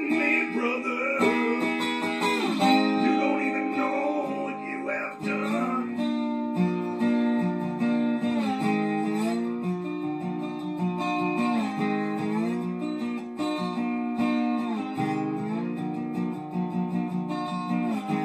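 Resonator guitar played lap-style with a slide: an instrumental passage of picked notes and ringing chords whose pitches glide between positions several times.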